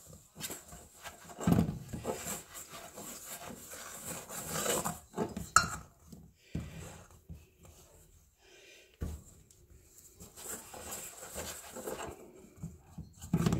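Fork stirring and scraping stiff bread dough around a stainless steel bowl: irregular rubbing, scraping strokes with a sharp clink about five and a half seconds in. There is a quieter pause in the middle before the stirring resumes.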